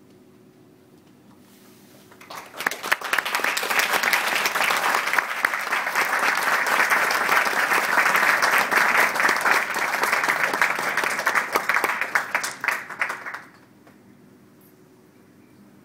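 Audience applauding: many people clapping together, starting about two seconds in, holding steady, and stopping fairly abruptly about eleven seconds later.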